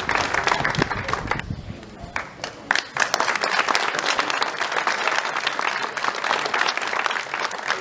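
Crowd applauding, a dense patter of hand claps. It dips briefly about a second and a half in, then picks up again.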